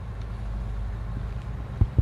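Tractor diesel engine running steadily with a low hum, and one short, sharp knock near the end.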